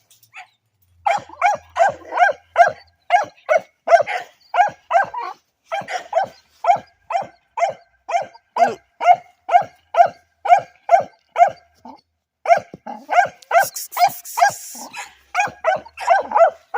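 A dog barking repeatedly and steadily, about two barks a second, with a short pause near three quarters through.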